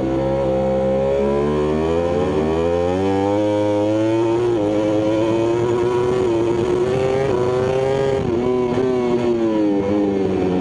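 Yamaha YZR-M1 MotoGP bike's crossplane inline-four engine at racing speed, heard from onboard. The engine note climbs for about four seconds under acceleration and holds high. It dips briefly about eight seconds in, rises again, then falls away near the end as the throttle comes off.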